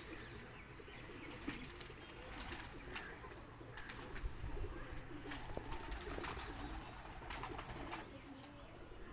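A flock of domestic pigeons cooing steadily in a low murmur, with a few short sharp clicks scattered throughout.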